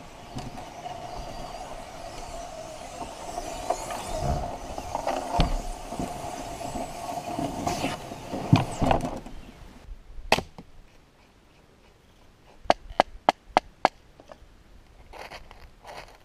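Canoe hull scraping and bumping as it is dragged up a grassy bank, with a steady grinding tone and a few heavy thumps. Then one sharp wooden knock, followed a couple of seconds later by a quick run of five or six sharp knocks and some faint scraping.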